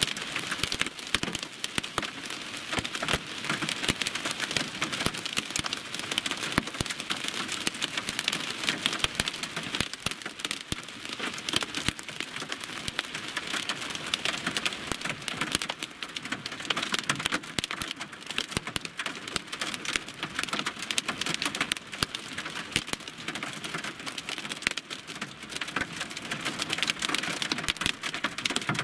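Heavy rain hitting a car's windshield and roof, heard from inside the cabin: a dense, steady patter of drops.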